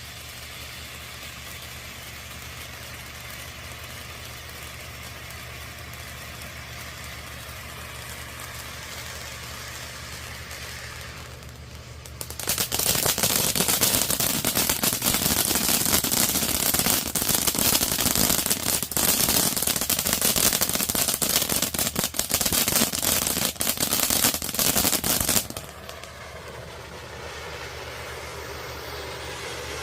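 Monkey Mania 3-minute firework fountain burning with a steady spraying hiss; about twelve seconds in it breaks into loud, dense crackling for about thirteen seconds, then drops back to hissing.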